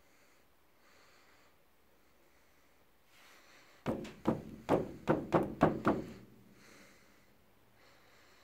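A hand patting a cat curled up inside a kick drum: about seven quick thumps over two seconds, starting about halfway through.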